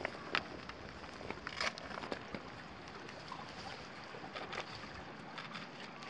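Thick mooring ropes being handled and hauled around a metal bollard on a concrete quay, giving scattered sharp knocks and scrapes over a steady background hiss of wind.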